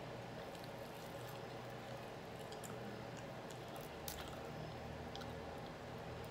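Faint chewing and wet mouth sounds of a person gnawing meat off a grilled pork chop bone, with a few small clicks and one slightly louder click about four seconds in.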